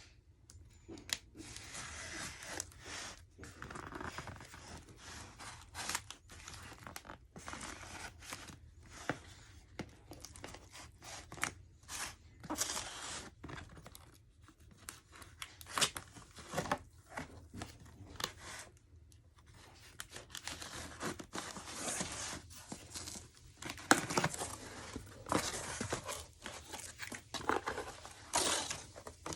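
Packaging of a mailed vinyl record being opened by hand: irregular tearing, cutting and crinkling of wrapping, in short rustling strokes of varying length.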